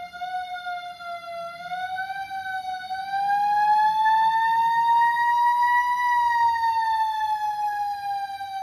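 Fire truck siren sounding a slow wail: one steady pitched tone that dips slightly, climbs over several seconds to a peak about six seconds in, then falls again. It gets louder about three seconds in.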